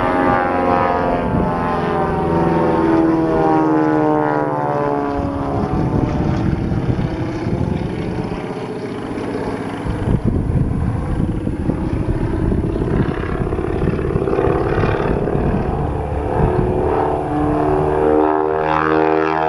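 Twin Beech 18's two radial engines and propellers running at display power during a pass. The pitch slides down over the first few seconds as the plane goes by, the sound turns rougher in the middle, and the pitch rises again near the end as it comes back around.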